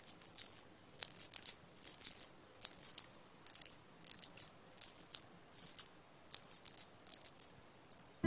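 A shaker-type rattle shaken in short, crisp shakes, about one and a half a second, sometimes in quick pairs, playing on its own.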